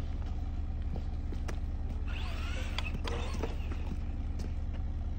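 A steady low hum, with scattered light clicks and a faint wavering high sound about two seconds in.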